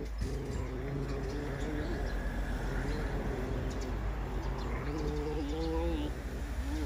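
A puppy growling low and wavering while it eats from a shared bowl, guarding its food. The growl swells and wobbles in pitch over a few seconds and is strongest near the end.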